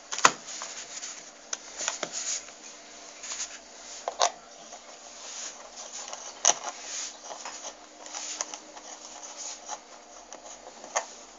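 Hands handling a pen-style e-cigarette battery and fitting its threaded end onto a small charger: irregular rubbing and scraping with several sharp clicks, the loudest about a quarter second in.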